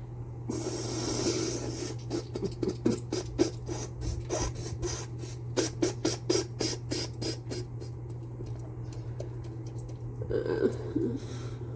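A person with a head cold breathing and sniffing as a sneeze builds: a breathy rush of air, then a run of quick sharp sniffing and clicking sounds, about four or five a second, and a few short breaths near the end.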